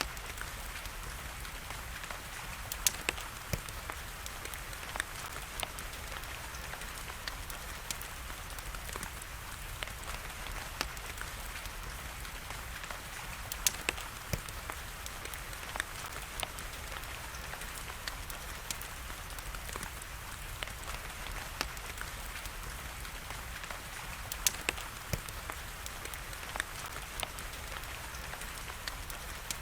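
Wood fire crackling, with sharp pops every few seconds (loudest about 3, 14 and 24 seconds in), over a steady hiss of rain.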